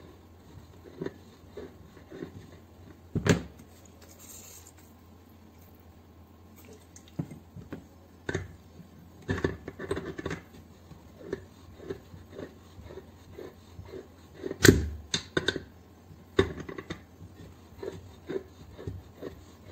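A hand scraper working in short, repeated strokes across the head-gasket face of a two-cylinder air compressor block, scraping at the old gasket. Two louder knocks stand out, about three seconds in and again near fifteen seconds.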